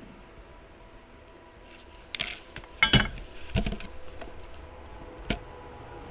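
Small tools and parts being handled on a soldering workbench: about four sharp clicks and knocks from about two seconds in, the loudest near three seconds, over a faint steady hum.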